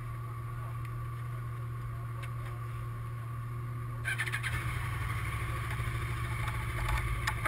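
A vehicle engine idling with a steady low hum, growing louder with more noise about four seconds in. Near the end come a few sharp clicks as the key goes into the BMW sport bike's ignition switch.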